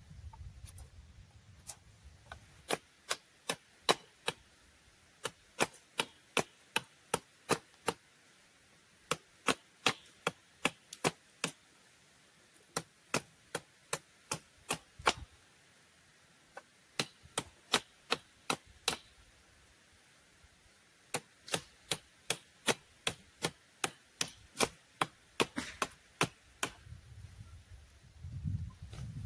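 Runs of sharp, regular strikes of a tool on wood, about two or three a second, broken by several short pauses, as in chopping. A low rumble sounds near the start and again near the end.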